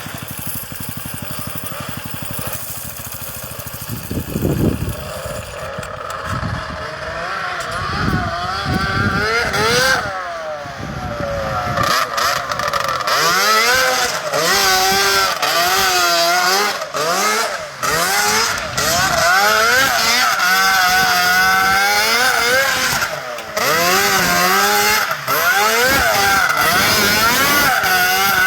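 Snowmobile-engined go-kart with an 800cc Yamaha two-stroke, running steadily at first, then revving hard up and down again and again as it is driven.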